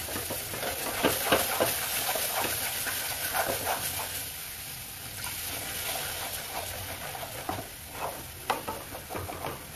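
Thick onion-and-spice masala sizzling in oil in a metal kadai, with a spatula stirring and scraping it across the pan bottom in irregular strokes. The masala is being roasted until it releases its oil, almost done.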